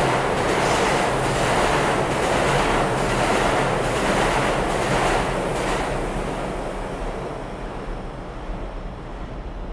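A New York City Lexington Avenue Line subway train runs through the station at speed on the express track without stopping. Its wheels clatter over the rail joints in a regular beat under a second apart, and the noise fades away after about six seconds as the last car clears the station.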